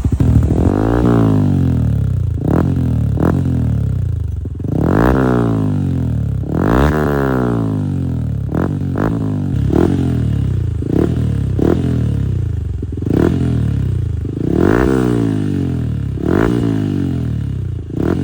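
Yamaha Sniper 155's single-cylinder four-stroke engine running through an MVR1 Power Pipe aftermarket exhaust, revved again and again: a few long revs up and back down, and many short, quick throttle blips between them.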